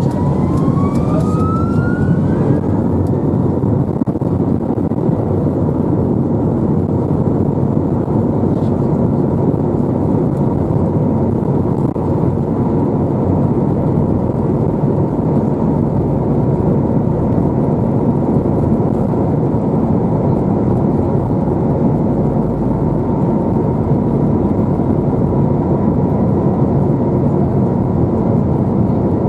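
Airbus A321 jet engines heard from inside the cabin, spooling up: a whine rises in pitch over the first couple of seconds, then settles into a steady loud roar with a held whine, the engines at high thrust for take-off.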